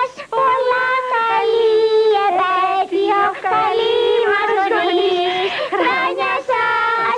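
A child singing a melodic song over musical accompaniment, in phrases of held and gliding high notes.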